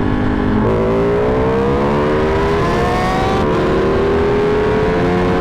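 Ducati 1199 Panigale's V-twin engine accelerating hard through the gears, its pitch climbing after quick upshifts, with wind rushing past the rider's helmet.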